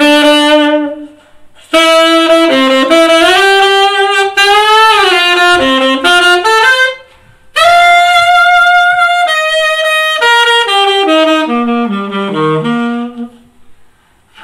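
Saxophone playing a jazz melody line in three phrases, with short pauses between them.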